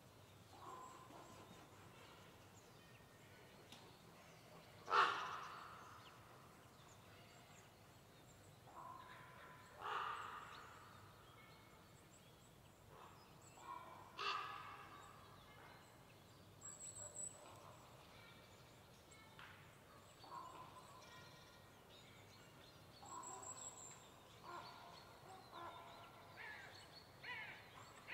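Quiet autumn pine-forest ambience: three louder, harsh animal calls ring out about 5, 10 and 14 seconds in, each echoing among the trees, while small birds give scattered soft chirps and short high notes.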